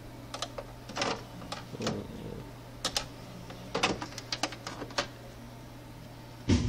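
Front-panel buttons of a CD player clicking as they are pressed, about ten clicks spread irregularly over a steady low hum. Loud guitar music starts suddenly near the end.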